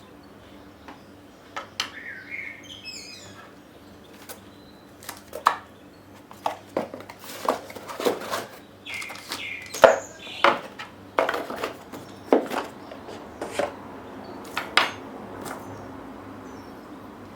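Irregular sharp clicks and clinks of small hard tools and parts being handled on a repair bench, with faint bird chirps behind.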